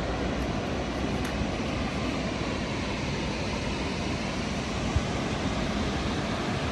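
Steady rush of a large waterfall, Burney Falls, an even noise of falling water with a brief bump about five seconds in.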